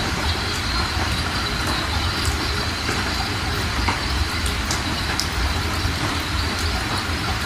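Fast-running floodwater rushing and churning over the ground: a steady, even rush with a deep rumble underneath.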